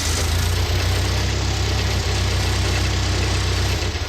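Clark forklift's carbureted engine idling roughly as unlit propane is fed at a vacuum leak between the intake manifold and cylinder head. The engine draws in the propane and its idle picks up, the sign that this is where air is leaking in.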